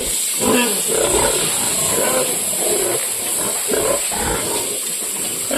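Pigs grunting, a run of rough, harsh grunts about one or two a second.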